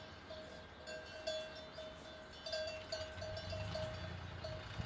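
Livestock bell clanking over and over at one steady pitch, in short irregular strokes as the animal wearing it moves.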